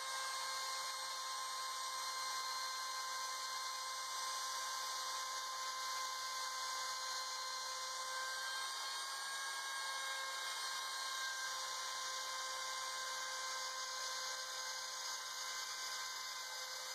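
Homemade CNC router milling a white plastic plate: the spindle runs with a steady high whine of several fixed tones over a dense hiss as the end mill cuts.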